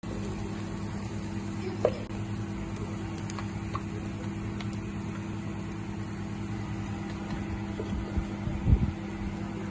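A steady machine hum throughout, with a few light clicks of a spatula against a nonstick frying pan as fried rice is stirred, and a couple of dull knocks near the end.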